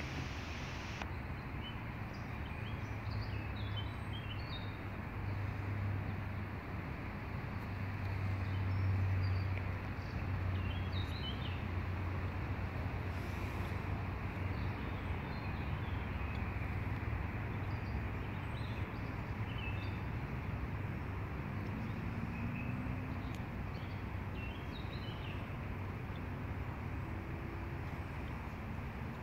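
Outdoor ambience: a steady background rush with a low hum, and small birds chirping briefly every few seconds.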